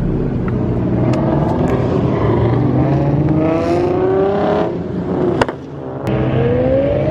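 Car engine accelerating, its pitch climbing steadily. About five and a half seconds in the sound drops briefly with a sharp click, and then the engine climbs in pitch again.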